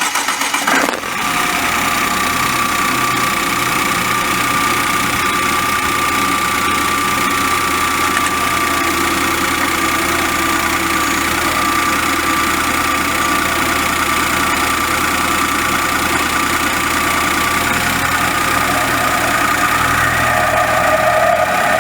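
Cold start of a 2013 Volvo V60 T4 engine, catching about a second in and then idling steadily. In the last few seconds a rubbing noise sets in as the clutch engages to pull away. This is an abnormal cold-start noise that appears when the clutch engages in first and second gear.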